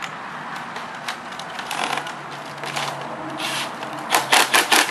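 Cordless drill running briefly as it drives a screw into a synthetic thatch hip cap, followed near the end by a quick run of sharp crackling rustles from the stiff plastic thatch leaves being handled.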